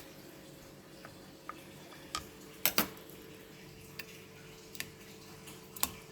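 Scattered light clicks and taps of hard objects being handled, about eight in six seconds, the loudest a quick pair about two and a half seconds in. A faint steady hum runs beneath.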